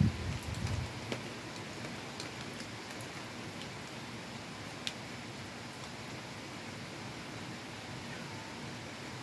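Heavy rain falling steadily, drops splattering on a wet deck railing, with a few sharper single drop ticks. A brief low rumble comes in the first second.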